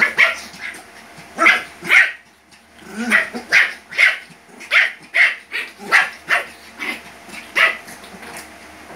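Shih Tzus play-fighting, with short, sharp yapping barks in quick succession, about two a second, that stop near the end.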